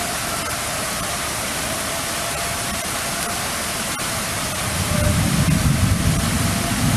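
Outdoor tornado warning siren dying away: its faint steady tone fades out within the first half-second, the sign of the sirens being switched off. Under it a steady broad hiss of storm noise, with a low rumble building about five seconds in.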